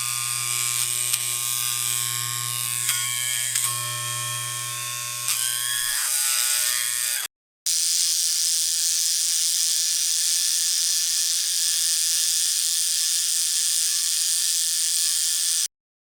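Electric shaver running with a steady motor buzz, in two stretches split by a brief silence about seven seconds in. The first stretch has a stronger low buzz with small shifts in tone, and the second is steadier and hissier.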